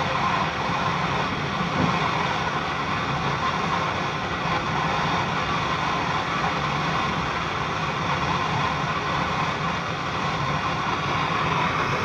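Handheld gas-can brazing torch burning with a steady hiss while it heats a refrigerator capillary tube joint for brazing.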